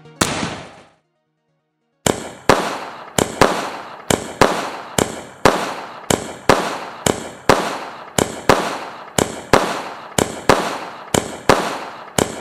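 Twelve-shot fireworks cake ('12 Star Special') firing its shells one after another. After a brief sound at the start and a second of quiet, a steady run of sharp bangs follows, about two a second, as the shells launch and burst with a report.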